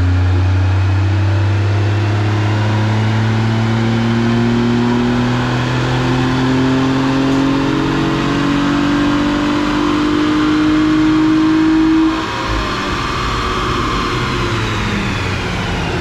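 Smart fortwo's small three-cylinder engine held at full throttle in a dyno pull, its pitch climbing slowly and steadily. About twelve seconds in it lets off and drops away, leaving a whine that falls in pitch as the drivetrain and dyno rollers coast down.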